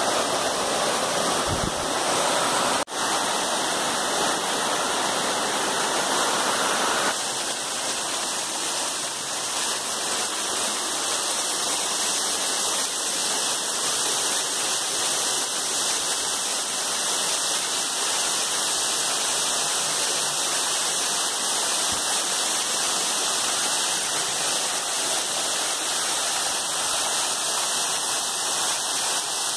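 Waterfall at Somersby Falls: a steady rush and splash of water pouring down rock ledges. It drops out for an instant about three seconds in, and the sound grows a little thinner at about seven seconds.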